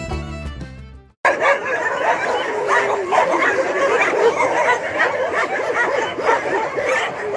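String-instrument background music fades out in the first second; then, after a short gap, several dogs yip, whine and bark at once, a dense overlapping chorus of excited high calls.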